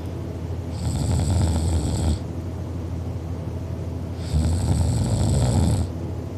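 A sleeping person snoring: two long snores, each about a second and a half, some three and a half seconds apart.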